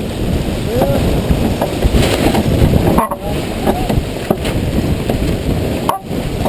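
Wind buffeting the microphone and water rushing and splashing along the hull of a sailboat moving fast under sail, a dense steady rush.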